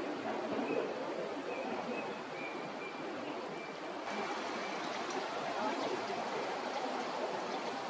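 Steady rushing noise like running water, with a faint series of short, high chirps in the first half.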